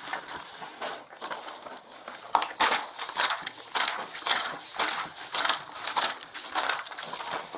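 Papers and photographs being handled and leafed through: irregular rustling and shuffling with light knocks.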